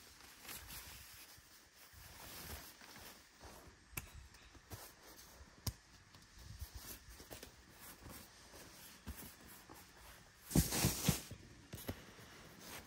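Handling of a self-inflating sleeping pad and its nylon stuff sack: scratchy rustling of fabric with scattered light clicks and taps as the pad is pulled out and unrolled. About ten and a half seconds in there is a louder, denser burst of rustling and knocks lasting under a second.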